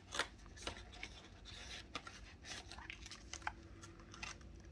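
Faint rustling of paper banknotes and clear plastic binder envelopes being handled, in scattered short crinkles and soft clicks.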